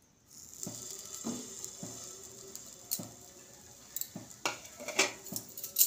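Egg-soaked bread slices sizzling in melted butter in a hot non-stick kadai, with a steady high hiss that starts about a third of a second in as the bread meets the pan. Scattered light knocks and clinks of dishes and utensils sound over it.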